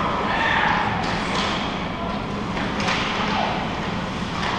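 Ice hockey rink ambience during play: distant shouts and calls echoing in the arena, with a few short knocks from play on the ice about a second and a half and nearly three seconds in.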